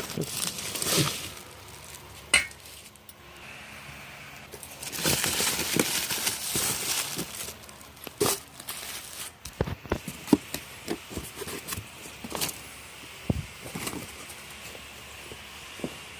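Unpacking a bicycle engine kit box: packaging rustling and scraping, with metal parts and loose hardware clinking and knocking as they are handled.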